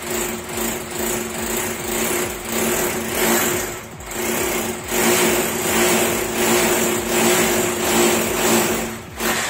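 Corded electric drill with a 6 mm bit boring into a wall for wall plugs, its motor running at a steady pitch under load. It eases briefly about four seconds in and again near the end.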